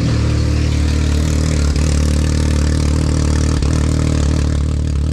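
Can-Am Maverick X3's turbocharged three-cylinder engine idling steadily through a newly fitted aftermarket exhaust, with a deep, fairly quiet note. Two faint clicks sound about two seconds and three and a half seconds in.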